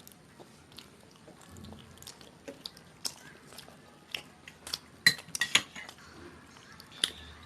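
Scattered light clinks and taps of eating from plates, with some chewing. A quick cluster of sharper clinks comes about five seconds in.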